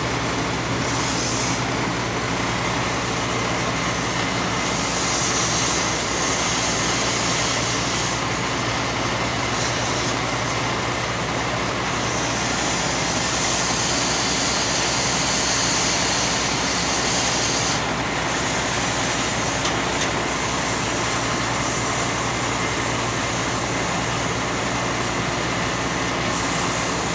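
Steady engine drone with a hiss over it from welding repair work on the steel structure of an elevated railway; the hiss in the highs thins out for a few seconds midway and again near the end.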